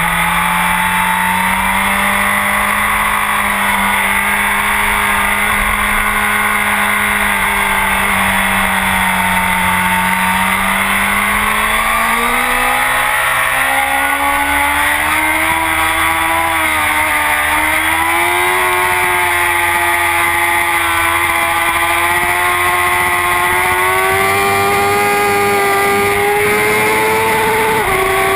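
Honda CBR1000RR's inline-four engine through a full Akrapovic exhaust, heard from a camera mounted on the bike at track speed. The engine note holds steady for about ten seconds, then climbs in pitch over the next several seconds as the bike accelerates, with a brief dip partway and a short break near the end, over a steady rush of wind.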